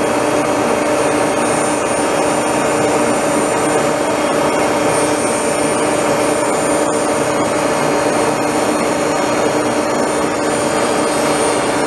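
Tool post grinder's electric motor and wheel running steadily together with the engine lathe turning a heavy 3-jaw chuck, the wheel set inside the jaws to grind them true, making a steady machine hum with a couple of held tones.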